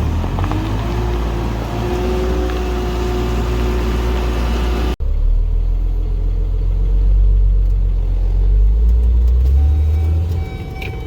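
Heavy diesel vehicle's engine running with a deep, steady rumble, briefly breaking off about five seconds in and coming back heavier.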